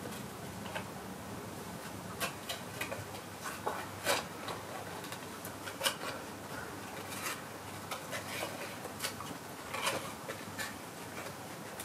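Calico cat grooming itself, its tongue rasping against its fur in short, irregular licks.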